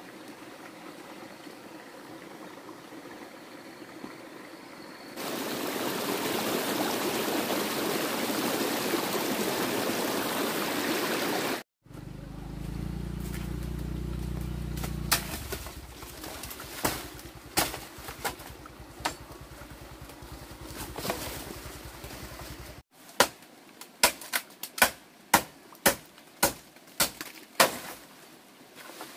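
A stretch of steady rushing noise, then scattered crackling and snapping in a dry bamboo thicket, ending in a quick run of about ten sharp cracks as dry bamboo is broken.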